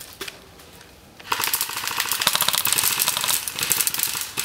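Airsoft gun firing on full auto: a rapid, continuous stream of sharp clicks that starts about a second in and keeps going.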